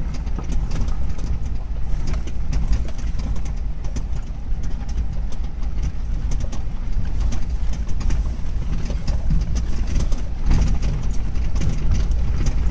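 Off-road vehicle driving over a rough gravel track, heard from inside the cabin: a steady low rumble from the engine and tyres, with frequent knocks and rattles as the vehicle jolts over stones.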